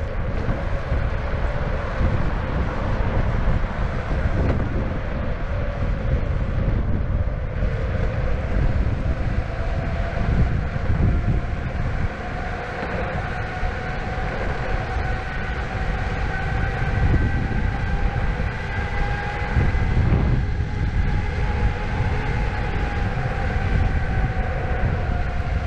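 Electric skateboard on the move: a low rumble of the wheels on asphalt and wind on the microphone, with the whine of its direct-drive motors drifting slowly up and down in pitch with speed.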